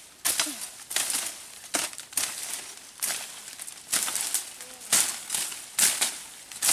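Leaves, ferns and dry leaf litter rustling and crunching as people push on foot through dense undergrowth, in irregular bursts about one or two a second.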